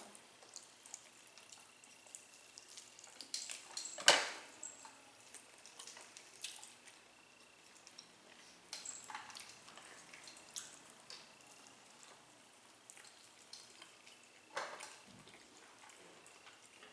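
Eating sounds at a meal: scattered small clicks and taps, with a sharp tap about four seconds in and another near the end.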